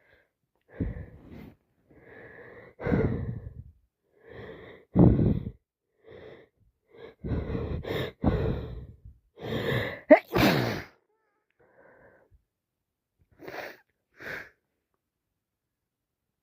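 A woman with a congested head cold sneezing wetly again and again, with wheezy, gasping breaths between the sneezes. The loudest sneezes come about five and about ten seconds in, and a few short, quieter breaths follow near the end.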